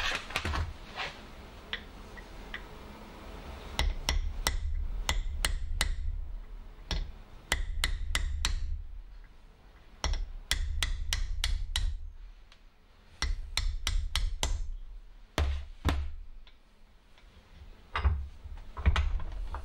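Sharp metallic clicks and knocks in runs of about two seconds, about three a second, with a low rumble under each run, as the compressor wheel is worked loose on a diesel turbocharger's cartridge clamped in a steel bench vice.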